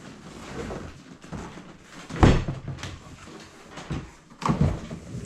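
Knocks, thumps and rustling of a large cardboard box and its packaging being handled as the iMac is lifted out. The loudest thump comes about two seconds in, with a few more near the end.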